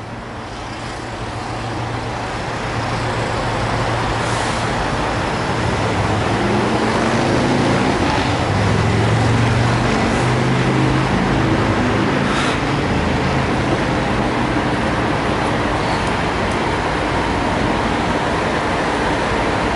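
Diesel semi-trucks running in a truck stop lot, a steady rumble under traffic noise that grows louder over the first few seconds. A couple of brief hisses stand out.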